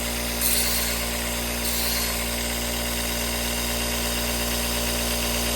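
Electric knife-sharpening grinder running steadily with a constant motor hum, and a steel knife blade grinding against it with a high hiss for about the first two seconds while the broken tip is ground back into shape.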